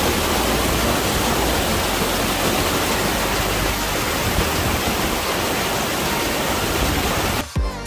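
Loud, steady rush of a waterfall, cutting off suddenly near the end.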